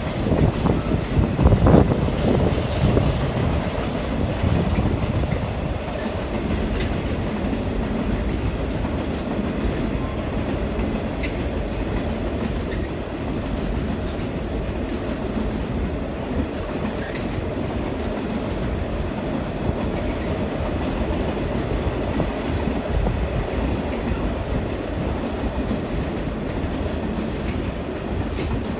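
Container wagons of a freight train rolling past on the rails: a sharper, louder wheel clatter in the first two seconds, then a steady rolling noise.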